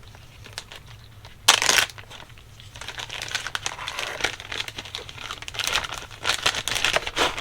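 Hands handling small carburetor parts on a workbench: rustling, crinkling and many light clicks. About a second and a half in there is one short, loud rush of noise.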